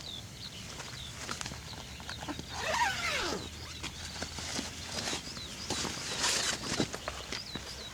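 A small bird calling over and over with short, high, falling chirps, about three a second. Scattered clicks and rustles sound beneath it, and about three seconds in there is a louder sound that slides down in pitch.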